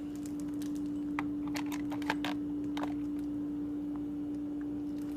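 A quick run of sharp plastic clicks and taps as a plug-in carbon monoxide alarm is handled and put into place, over a steady hum.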